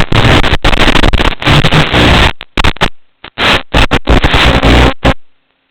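Loud, harsh, distorted noise from an FPV racing drone's recording. About two and a half seconds in it starts cutting in and out in choppy bursts with silent gaps.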